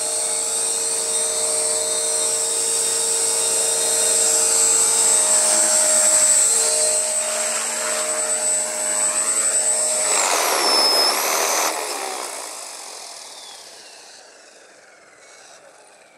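Walkera V450D03 electric RC helicopter running with a steady high motor whine and rotor noise. About ten seconds in the motor is cut: its whine drops in pitch and stops, and the rotor blades coast down, the sound fading away.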